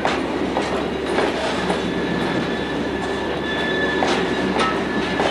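Covered hopper cars of a freight train rolling steadily past at close range, their wheels clacking over the rail joints, with a faint thin squeal from the wheels in the middle of the passage.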